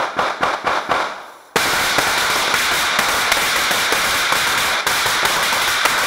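Firecrackers going off: a run of separate sharp bangs, about four a second, then, about a second and a half in, a dense unbroken crackle of rapid-fire bangs from a firecracker string.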